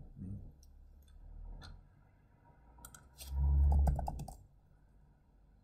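Typing on a computer keyboard: a few scattered key clicks, then a quick run of keystrokes about three seconds in. A dull low thump, the loudest sound, lands under the keystrokes.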